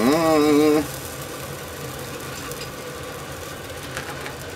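A short wordless vocal sound, rising and then wavering in pitch, over a steady mechanical hum. A light tap of metal tongs on the grill plate comes near the end.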